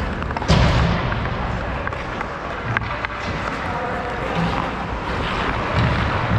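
Ice hockey play: skate blades scraping the ice under a steady rumble, with a loud sharp hit about half a second in and a few lighter clicks of stick and puck around three seconds.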